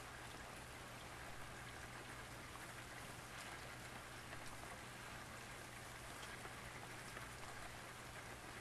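Light rain pattering, many small drops ticking steadily, over a faint steady low hum.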